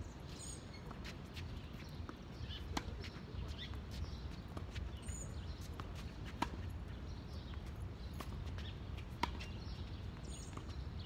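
Tennis ball hit back and forth in a rally: three sharp racket strikes about three seconds apart, with fainter knocks between them, over a steady low background rumble.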